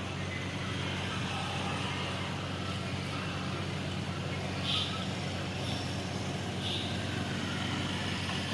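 Storm water rushing and swirling down an open manhole in a whirlpool, a steady rushing wash, over a constant low hum.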